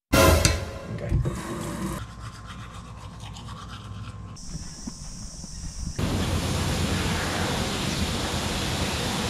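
A brief loud noise at the very start, then a toothbrush scrubbing teeth. About six seconds in it switches suddenly to the steady hiss of a self-service car wash's high-pressure spray wand.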